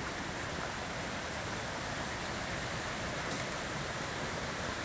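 Steady rushing of a river flowing over rocks, an even hiss with no change, and a brief high click about three seconds in.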